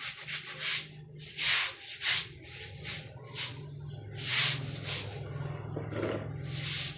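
A small dry-erase whiteboard being wiped clean by hand, a series of uneven hissing rubbing strokes, over a steady low hum.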